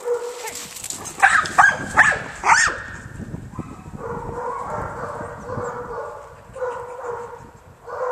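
Labrador retriever barking excitedly, four sharp barks about a second in, then whining on and off. The dog is eager for a shed antler to be thrown for it to retrieve.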